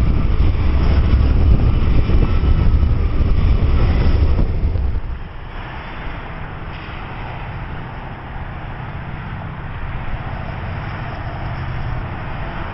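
BNSF freight train's diesel locomotives rumbling past directly below, loud and low. About five seconds in, this cuts to the quieter, steady drone of Canadian Pacific diesel locomotives approaching from a distance.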